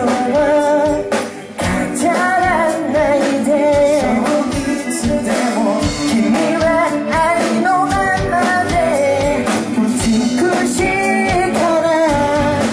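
Live pop-rock band performing a song, a male lead vocalist singing over the full band.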